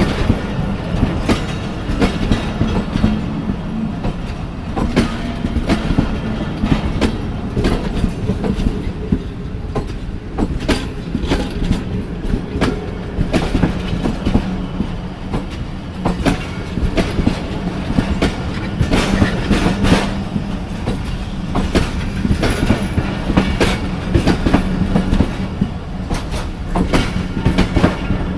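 Passenger train coaches rolling past, steel wheels clacking over the rail joints in a continuous irregular clatter over a steady rumble and low hum.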